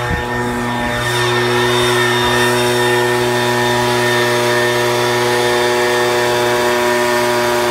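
Gas-powered backpack leaf blower running steadily at a constant engine speed, blasting air through its tube into dry leaves.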